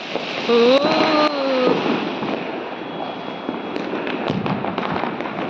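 Firecrackers going off in a continuous crackling din, with sharp pops in the second half. A brief wavering tone rises and falls for about a second, starting half a second in.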